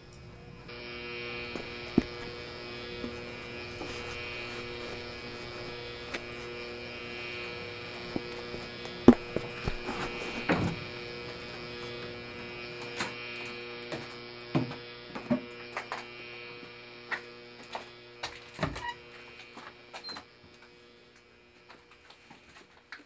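A steady electric buzzing hum with several tones, starting just after the beginning and stopping near the end, over scattered knocks and thuds of wooden floorboards being handled, the loudest about nine seconds in.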